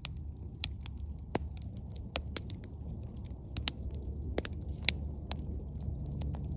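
Wood campfire crackling, with irregular sharp snaps and pops, a few each second, over a low steady rumble.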